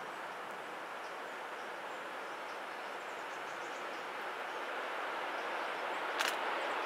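Distant freight train approaching on the line: a steady rolling rumble that grows louder in the last few seconds, with a sharp click near the end.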